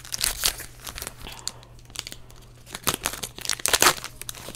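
Foil booster pack wrapper crinkling as it is handled and torn open, in crackly bursts just after the start and again from about three seconds, the loudest near four seconds.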